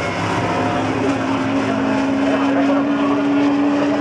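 Open-cockpit prototype race car engine at high revs, one sustained note that climbs slowly in pitch as the car accelerates along the track.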